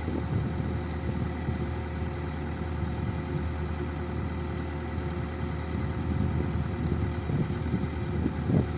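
Komatsu excavator's diesel engine running with a steady, even hum.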